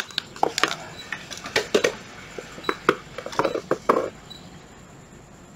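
A rapid run of sharp plastic clicks and knocks from a cordless drill being handled and set down, about a dozen in the first four seconds, then they stop.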